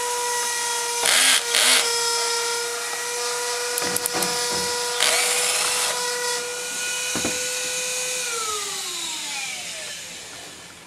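Cordless drill-driver running at a steady high speed to back out screws, with short rasping bursts from the bit and screw about a second in, again just after, and around five seconds in. Near the end the trigger is let go and the motor winds down, its whine falling in pitch over a couple of seconds.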